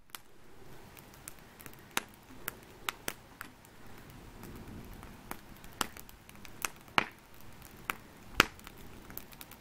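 Wood campfire of scrap boards and logs crackling: about a dozen irregular sharp pops and snaps over a faint hiss of burning, the loudest snap near the end.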